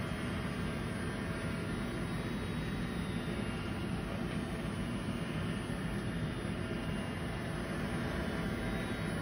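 Cheap robot vacuum running, a steady, even motor and fan whir that does not change.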